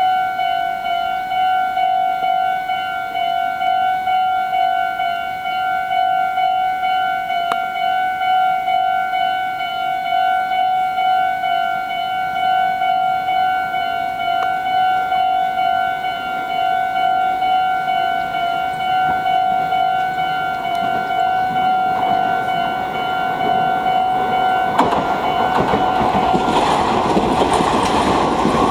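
Japanese railway level-crossing warning bell ringing steadily with its repeated electronic clang. About 25 seconds in, the rumble of a Meitetsu 4000 series electric train grows loud as it reaches the crossing.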